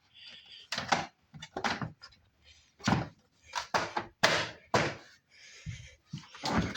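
Parts of a Can-Am Outlander 570 ATV being fitted back into place after an air filter change: a series of sharp knocks and clunks, roughly one every half to one second.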